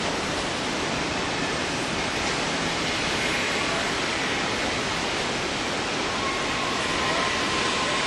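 Steady rushing roar of a waterfall, even and unbroken, with a faint thin tone about six seconds in.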